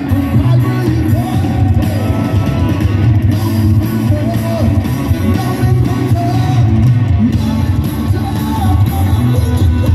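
A rock band playing loud and live: sung vocals over electric guitar and a heavy bass.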